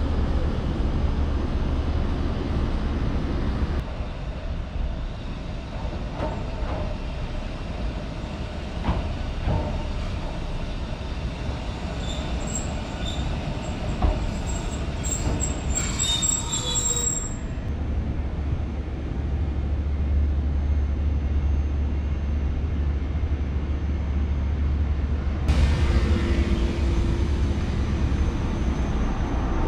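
Asunarou Railway 762 mm narrow-gauge electric train at a station platform, with high-pitched wheel or brake squeal for a few seconds about halfway through, over a steady low rumble.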